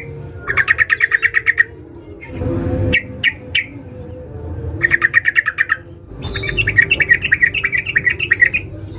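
Yellow-vented bulbul (trucukan) female calling to males: three bursts of fast chattering notes, with a few short separate notes before the last, longest burst.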